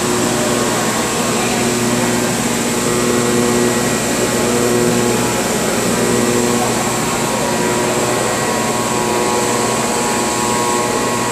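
Steady machine-shop noise of CNC turning machinery running: an even hum and hiss with several steady whining tones and no sudden knocks or bangs.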